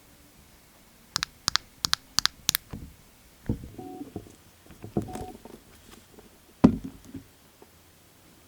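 Hard little clicks and knocks of nail-polish bottles and tools being handled on a table: a quick run of five sharp clicks, then softer taps and one louder knock near the end.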